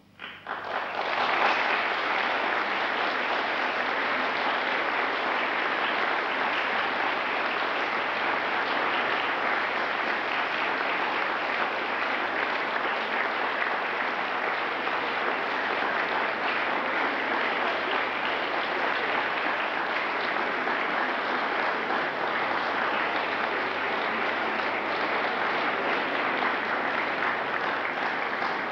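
Audience applause of many people clapping. It breaks out suddenly and then holds dense and steady.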